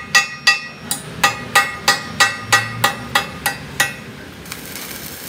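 Hand hammer striking the red-hot end of a truck's steel front axle, about three ringing metallic blows a second, stopping about four seconds in. A steady hiss follows near the end.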